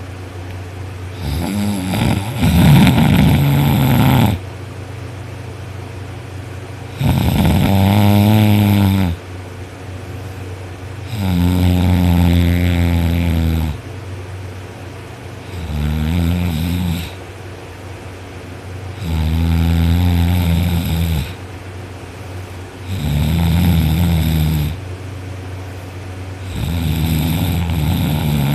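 A person asleep on their back, snoring loudly: seven long, rumbling snores about every four seconds, with quieter gaps between.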